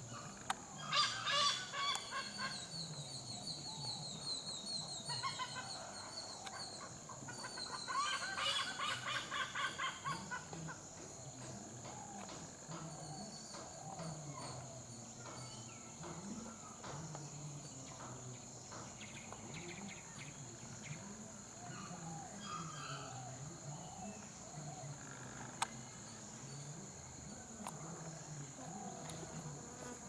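Hornbill calling in two bursts of rapid, repeated harsh notes, about a second in and again around eight seconds in, over a steady high insect drone.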